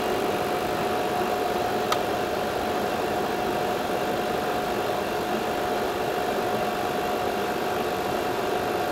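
R410A elevator air conditioner running with its compressor on: a steady mechanical hum with one constant tone, while the compressor builds pressure at the capillary-tube inlet during a capillary pressure test. A single light click about two seconds in.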